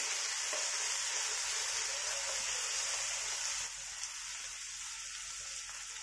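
Scallions, garlic and chili sizzling in hot oil in a wok while being stirred with a wooden spatula; the steady sizzle drops a little about two-thirds of the way through.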